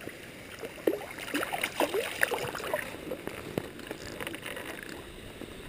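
Tributary creek water running steadily, with scattered small splashes and clicks in the first three seconds or so.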